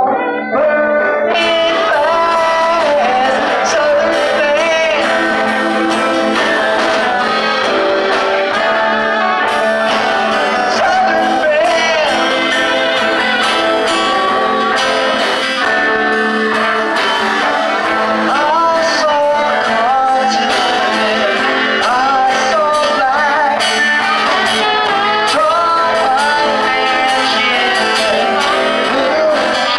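Live band playing with a singer, guitars to the fore. The low end is almost missing.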